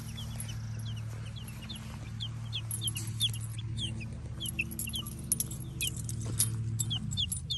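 Week-old chicks peeping: many short, high, down-sliding cheeps, several a second, over a steady low hum that stops near the end.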